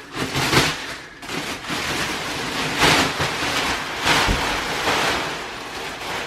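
Plastic wrapping crinkling and rustling in repeated swells as it is pulled off a compressed memory-foam mattress.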